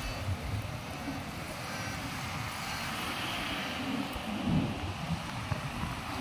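Surf breaking on rocks, a steady rush, with wind buffeting the microphone in low, gusty rumbles.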